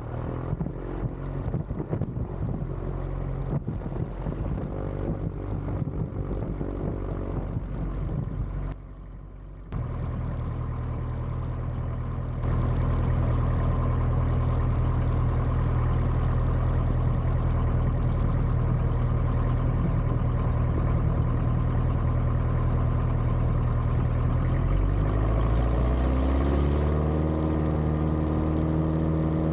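Piper J3 Cub's engine and propeller running at low power, dropping out briefly about nine seconds in. The throttle opens to full power about twelve seconds in for the takeoff roll, and near the end the engine note rises and then holds steady.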